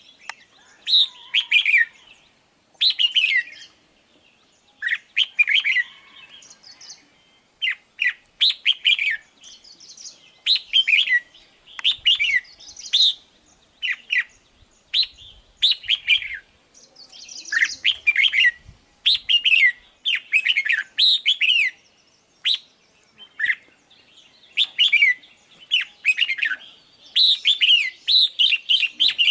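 Red-whiskered bulbul singing: short, bubbly phrases of quick falling whistled notes, repeated every second or two and coming more densely near the end.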